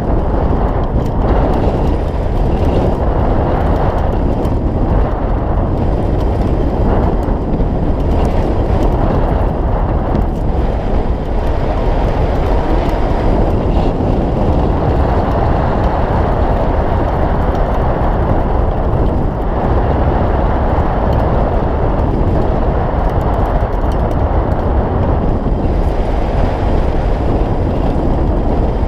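Steady, low rushing of wind over the microphone of a camera mounted on a hang glider's wing in flight.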